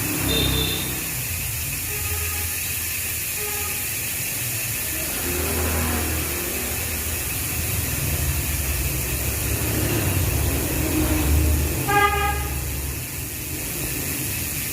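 Steady low road or traffic rumble, with a short horn-like toot about twelve seconds in and a few fainter brief tones earlier.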